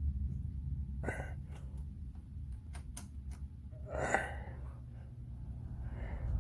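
Hurricane 20-inch box fan running with a steady low rumble. A few small clicks and two brief rustles come about one and four seconds in.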